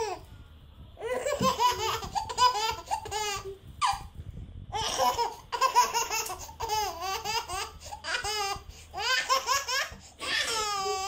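Baby laughing in repeated bouts of quick, high-pitched laughs, with short breaks between them.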